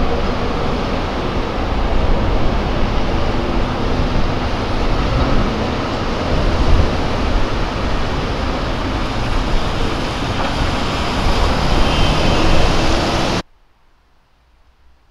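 City street traffic noise with a tram: a steady, dense rumble that cuts off abruptly near the end, leaving a faint quiet background.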